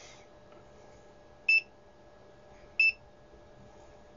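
Two short, identical high-pitched beeps from a digital multimeter as its buttons are pressed, about 1.3 seconds apart, while it is being zeroed.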